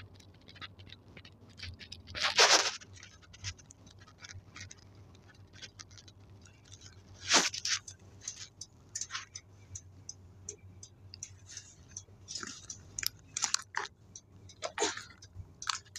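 Cabin sound of a Nissan Diesel city bus with a Fuji Heavy Industries 7E body: a steady low engine hum under frequent light rattles and clicks from the bodywork. There is a short, loud noisy burst about two and a half seconds in, and a sharp knock about seven seconds in.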